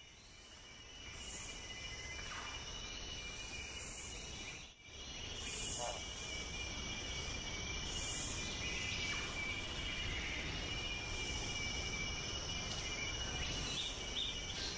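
Forest insect chorus: steady high-pitched trilling with softer insect pulses repeating above it. It fades in at the start and briefly drops out just before five seconds in.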